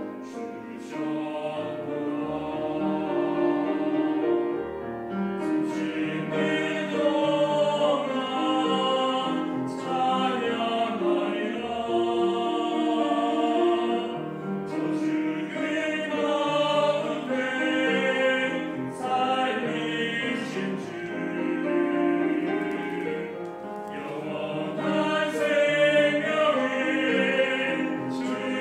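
Mixed church choir singing a Korean anthem in several parts, with piano and string accompaniment.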